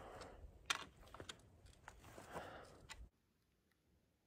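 Scattered light clicks and knocks of things being handled, stopping suddenly about three seconds in and leaving near silence.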